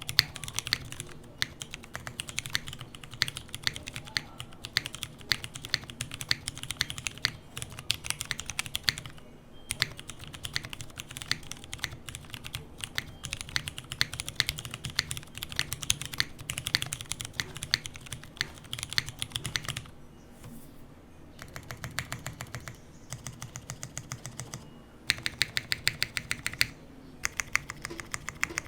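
Typing on a mechanical keyboard with Cherry MX Clear tactile switches, lubed, on light 45 g springs, in a Smith + Rune Iron165 with a carbon-fibre plate and GMK keycaps. The typing is fast and continuous with one short pause about nine seconds in. From about twenty seconds the keystrokes come slower and sparser, and late on there is a run of evenly spaced, louder presses.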